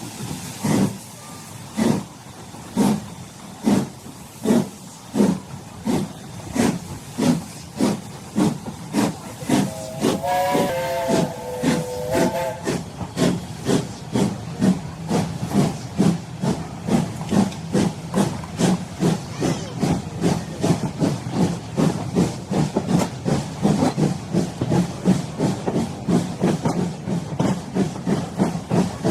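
Steam locomotive pulling away: exhaust chuffs speed up from about one a second to three or four a second. A chime whistle, several notes sounding together, blows for about two seconds near the middle.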